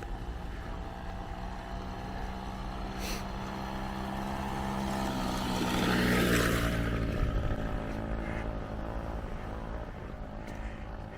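A motor vehicle passing close by: its engine note grows louder to a peak about six seconds in, then drops in pitch and fades as it moves away.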